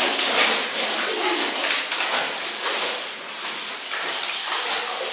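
Water splashing and churning as a dog paddles in a small indoor pool.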